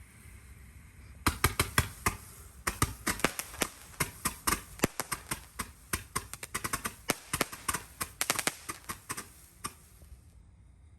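Phantom Fireworks Fiery Cloud fountain-to-aerial firework going off: a rapid, irregular string of sharp cracks and pops over a faint hiss. It starts about a second in, and the cracks stop near the end, with the hiss cutting off just after.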